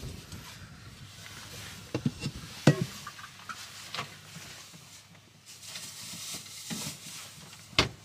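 A stainless steel bowl of cabbage leaves and a plate being set down and shifted on a countertop: a few separate knocks and clatters, the loudest about three seconds in, over light handling noise.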